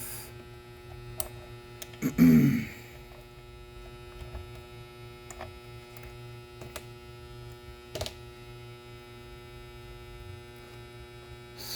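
Steady electrical mains hum, with a few light clicks and one brief louder sound about two seconds in.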